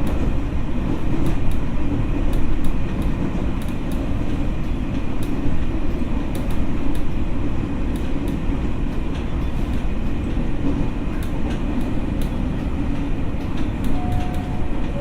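Running noise of an ex-Tokyo Metro 6000 series electric train, heard from inside the car: a steady rumble of wheels on rail with scattered light clicks.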